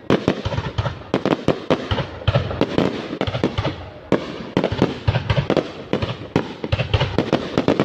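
Aerial fireworks bursting in rapid, irregular succession: many sharp bangs and crackles a second, with a short lull about halfway through.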